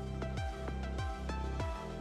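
Background music with a steady drum beat, a little over two beats a second, under held chords.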